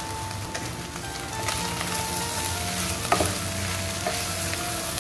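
Shredded chicken and chopped green capsicum sizzling in a nonstick pot as they are stirred with a wooden spatula, with one sharp knock about three seconds in.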